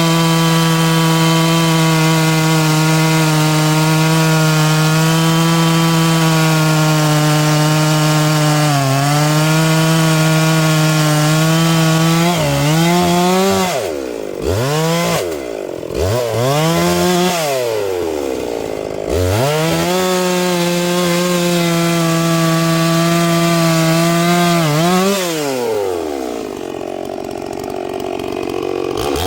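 A two-stroke chainsaw cutting oak, its engine held at a steady high pitch under load. In the middle the throttle is let off and opened again several times, so the pitch falls and rises. It cuts steadily again, then drops toward idle near the end and revs once more at the close.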